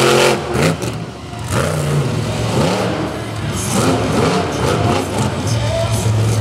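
War Eagle monster truck's engine revving hard in repeated bursts, its pitch climbing and dropping off again and again as the driver works the throttle in the dirt.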